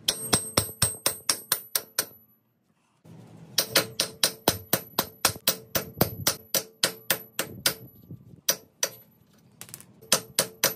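Hammer striking steel wheel studs on a Subaru BRZ front hub to drive out the old factory studs. The metallic hits come fast, about five a second, with a ringing tone, stopping briefly about two seconds in and again for short spells later.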